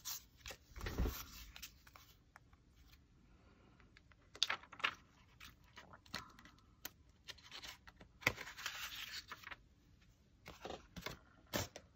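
Paper being handled at a desk: short bursts of rustling and sliding with scattered sharp taps, and a low thump about a second in.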